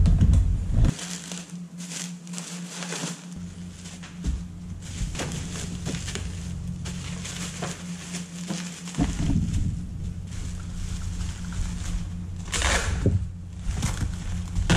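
Plastic bubble wrap crinkling and crackling as a box is wrapped in it by hand, with louder rasping bursts near the end.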